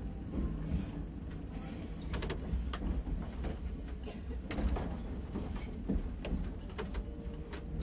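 Choshi Electric Railway electric railcar running along the track: a steady low rumble of wheels on rail with a low hum, and many irregular clicks and knocks from the rails and points.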